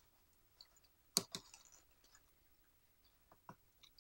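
A few faint clicks and light taps from the bass's control board of pots and an aerosol can of contact cleaner being handled. The sharpest click comes about a second in, and softer ticks follow near the end.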